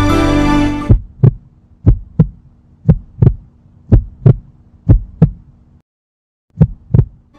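Heartbeat sound effect: double 'lub-dub' thumps about once a second over a low steady hum, six beats in all, with a short pause before the last one. Background music fades out just before the heartbeat starts.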